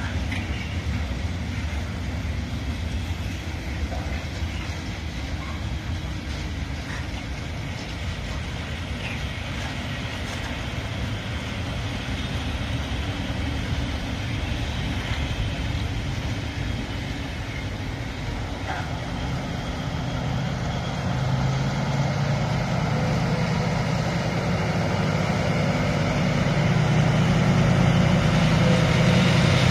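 Loaded coal train of Falls hopper wagons rolling past with a steady low rumble and occasional wheel clicks over the rail joints. In the last third the engine of a diesel locomotive at the rear of the train rises and grows louder as it draws near.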